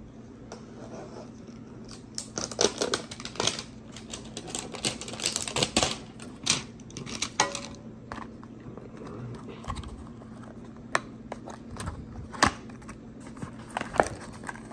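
A cardboard trading-card hanger box being handled and opened by hand, with irregular rustling and scraping of the cardboard and a few sharp clicks and snaps as the end flap is pried open, starting about two seconds in.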